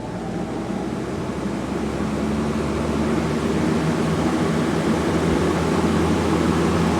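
Lasko 20-inch box fan with a direct-drive motor and five metal blades, speeding up to its high setting: a steady rush of air over a low motor hum that grows louder over the first few seconds and then holds. The owner says the blade set sounds dirty, clogged with dust.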